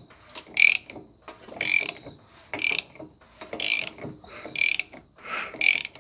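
Ratchet wrench clicking in short, high-pitched rasps about once a second, six times, as its handle is swung back on each stroke. It is turning a Yanmar two-cylinder diesel's crankshaft over by hand to find top dead centre on the compression stroke.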